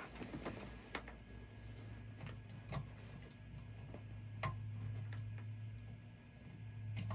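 Scattered small clicks and knocks of a spotlight being handled and set up, over a low steady hum.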